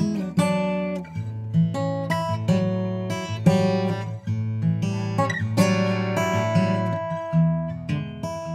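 1964 Gibson J-200 Custom acoustic guitar played with the fingers, picked notes ringing over sustained bass notes. It is recorded dry, with no effect or compression.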